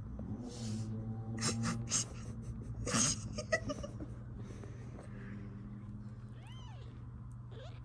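Young British shorthair kittens mewing: a few small, high mews that rise and fall come near the end, after some short breathy puffs in the first few seconds. A steady low hum runs underneath.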